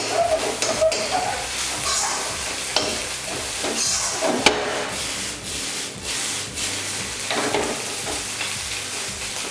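Chicken and spice paste sizzling as they fry in a hot pan, stirred with a utensil that clicks and scrapes against the pan again and again. One sharper knock comes about four and a half seconds in.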